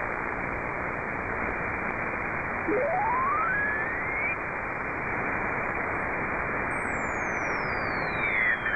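Shortwave receiver in SSB mode hissing with band noise between transmissions. About three seconds in, a carrier's whistle rises steeply in pitch, and near the end another whistle falls in pitch.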